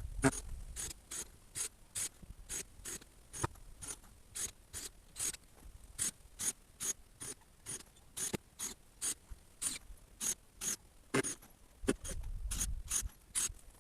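Regular mechanical clicking, about three sharp clicks a second, steady in pace.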